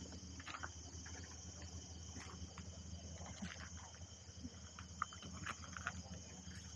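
Faint outdoor evening ambience: a steady insect trill with scattered short bird chirps over a low steady hum. A single sharp click comes about five seconds in.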